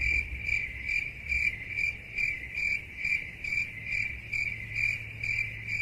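Cricket chirping steadily, one high chirp roughly every half second.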